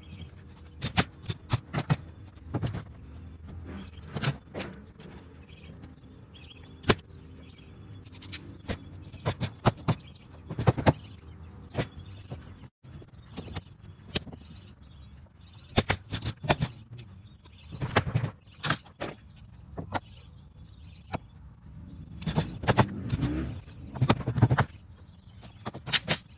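Irregular sharp knocks and cracks, often several in quick succession, from hand work on wooden fence pickets.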